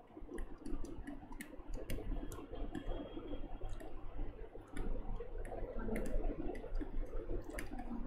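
Scattered light clicks and taps of a stylus pen on a writing tablet as handwriting is drawn, over a steady low hum.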